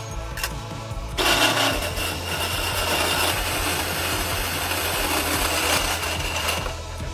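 Giant wood lathe running under its electric motor: a loud, steady whirring hiss with a high whine in it, starting about a second in and dropping away near the end.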